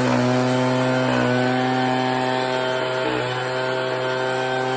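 Echo PB-9010T backpack leaf blower's two-stroke engine running at a steady speed.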